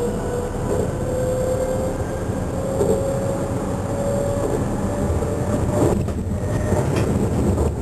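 Class 423 S-Bahn electric multiple unit running, heard from the driver's cab: a steady rumble of wheels on rails with the traction motors' whine rising slowly in pitch as the train gathers speed, then fading. A couple of sharp knocks near the end.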